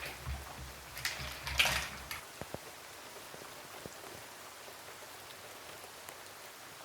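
Steady rain falling, an even soft hiss. Two brief rustling noises about a second in, and a low rumble that stops about two seconds in.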